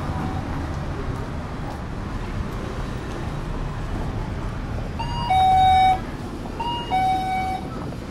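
Convenience-store door entry chime sounding a two-note ding-dong twice about five seconds in, a short higher note then a longer, louder lower note, triggered on walking in through the door. Under it, steady street and traffic noise.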